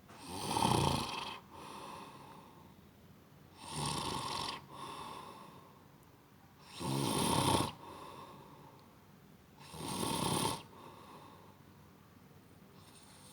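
A person snoring in deep sleep: four loud, rattling snores about three seconds apart, each followed by a quieter breath.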